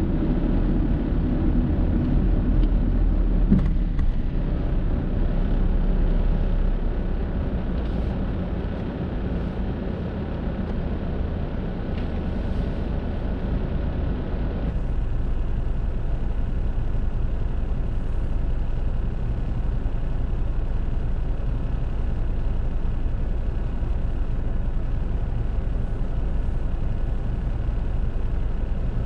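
Car driving in city traffic: a steady low road and engine rumble that eases as the car slows, then settles from about halfway into the even hum of the car standing still at idle.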